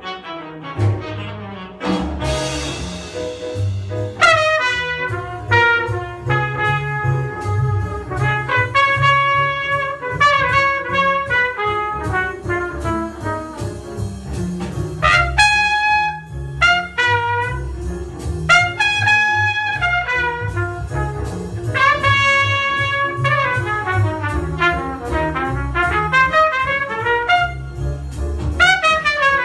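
Trumpet playing a jazz blues solo: runs of quick notes broken by held notes, over a rhythm section with bass and drums and a cymbal splash about two seconds in.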